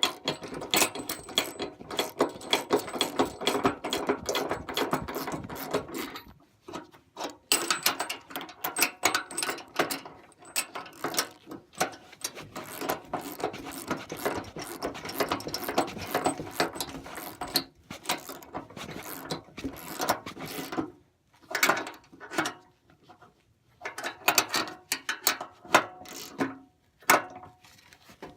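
Socket ratchet clicking rapidly in several long runs with short pauses, as bolts are tightened into nylock nuts on the plow's skid shoe brackets.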